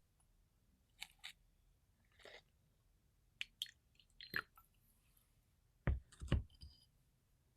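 Close-miked handling sounds: a scattering of light clicks and taps, then two heavier knocks about six seconds in.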